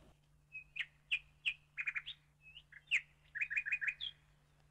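Small bird chirping: a string of short, high chirps, ending in a quick run of about five.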